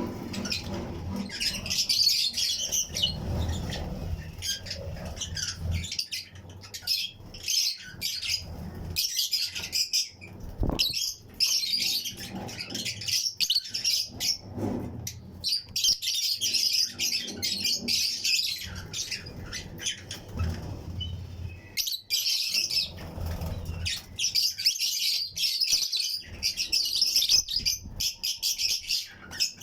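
A colony of Fischer's and lutino lovebirds chirping nonstop in a flight cage, a dense chatter of rapid high chirps. Low thuds come in now and then.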